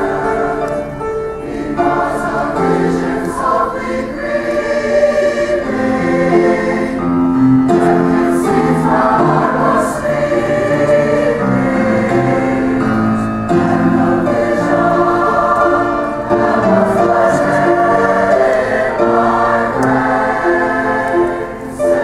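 Mixed choir of men's and women's voices singing in harmony, holding long sustained chords that change every second or so.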